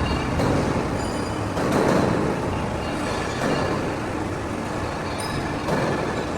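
Hydraulic press brake running: a steady machine noise that swells several times for about a second each.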